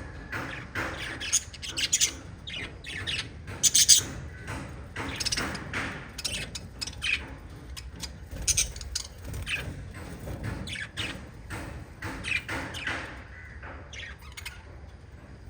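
Lovebirds chirping and squawking in quick, sharp, overlapping calls, with the loudest burst of squawks about four seconds in.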